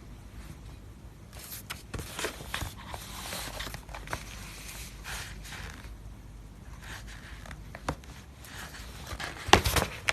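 Ink brush and paper handling on the painting table: soft hissing scrapes and rustles with a few light clicks, and a louder knock and rustle near the end.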